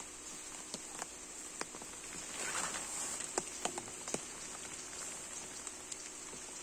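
A steady high-pitched drone of insects, with scattered light clicks and taps.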